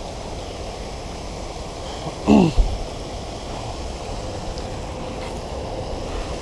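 Steady rushing background noise, with one loud swoosh falling in pitch and ending in a soft thump about two and a half seconds in, as a telescopic spinning rod is cast.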